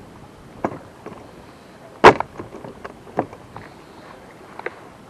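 Scattered knocks and clunks of gear and movement in an aluminium fishing boat, with one loud bang about two seconds in and a few lighter knocks after it.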